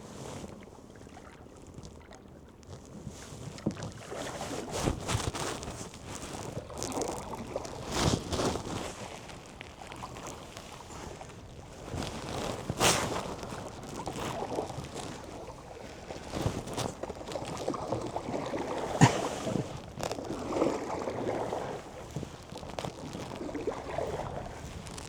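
Cedar-strip canoe being paddled: a paddle dipping and pulling through the water in repeated swells of splashing every few seconds, with a few sharp knocks, likely the paddle against the hull.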